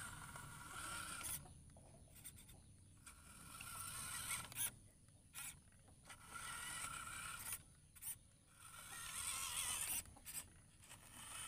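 Electric motor and gearbox of a WPL C24 RC truck whining in repeated bursts as the throttle is worked on and off, pulling a load of cassava stems over wet dirt.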